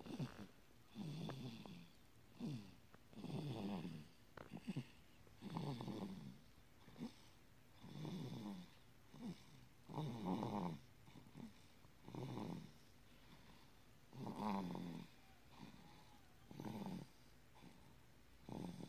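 A 170-day-old baby snoring in her sleep, one rough snoring breath about every two seconds.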